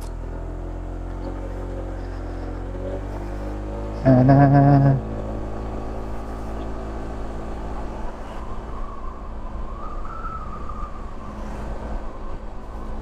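Honda ADV150 scooter's single-cylinder engine running as the scooter rides off, its pitch rising over the first few seconds. About four seconds in, a loud pitched sound lasts about a second.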